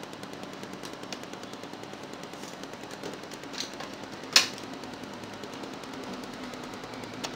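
Pen chart recorder running, its chart drive ticking rapidly and evenly over a steady low hum, with a few louder clicks, the sharpest about four seconds in.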